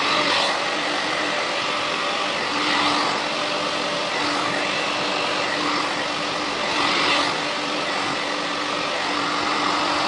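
Handheld hair dryer running steadily, a loud rush of blown air with a faint hum, briefly louder about three and seven seconds in as it is moved around the hair.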